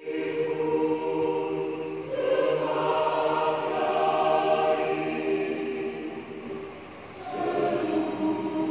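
A church choir singing in harmony, holding long chords. The singing eases off about six seconds in, then a new phrase comes in louder about seven seconds in.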